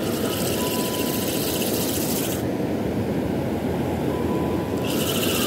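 Wind buffeting the microphone over the steady rush of breaking surf. A brighter hiss comes in for the first two seconds or so and again near the end.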